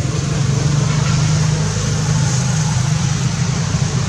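A motor vehicle's engine running steadily, heard as a low, even hum.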